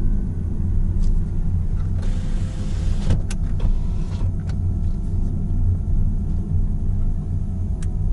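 Car driving slowly, heard from inside the cabin: a steady low rumble of engine and tyres. About two seconds in there is a brief hiss lasting about a second, followed by a few small clicks.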